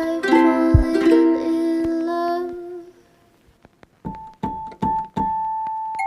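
Background music on a keyboard, like piano: full chords with a low beat that fade out about halfway, then after a short gap a few single repeated notes and one held note.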